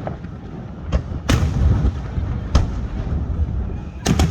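Fireworks going off: a series of sharp bangs, the loudest a little over a second in and past halfway, with a quick double crack near the end, over a steady low rumble.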